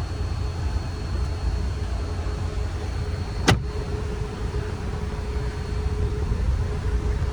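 Steady low hum of a car and its climate-control ventilation running during a test of a newly replaced HVAC air-flap servo motor, with a faint steady whine through the middle and a single sharp click about three and a half seconds in. There is no repeated clicking from behind the dashboard: the actuator noise has been eliminated.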